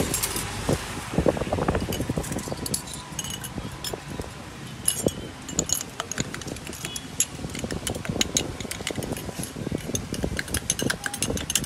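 Metal spoons clinking and scraping against small glass tumblers as drinks are stirred and handled, in quick irregular taps.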